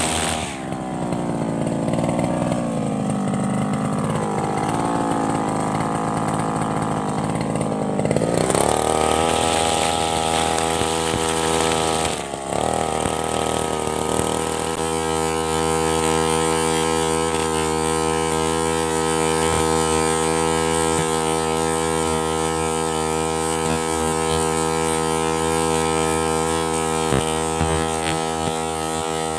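Petrol grass trimmer (brush cutter) with a nylon line head, its engine running under load while cutting grass. The pitch wavers with throttle and load for the first several seconds, rises to full speed about eight seconds in, dips briefly around twelve seconds, then holds steady at high revs.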